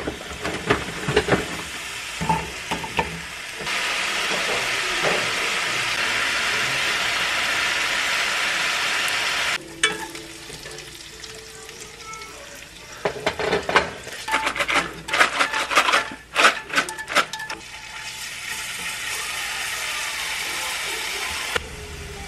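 Sliced pork belly sizzling as it fries in an oiled frying pan, a steady hiss that cuts off and comes back. In between come a run of sharp clicks of chopsticks against the pan as the fried pieces are lifted out.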